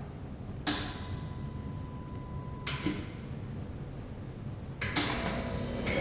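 Snap-on Eco Plus refrigerant recovery machine clicking internally four times as it checks the system pressures before recovery starts.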